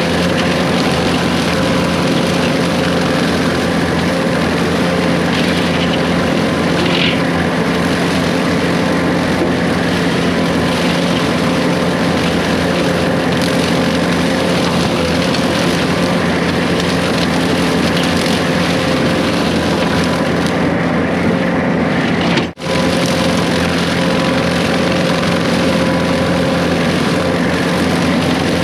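Case 140 excavator's diesel engine running steadily under working load, with a brief break in the sound about three-quarters of the way through.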